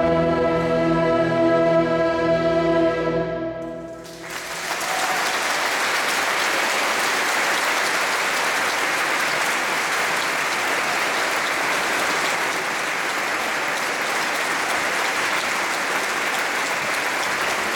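A concert wind band and choir hold a final chord that fades out about four seconds in. Steady audience applause follows.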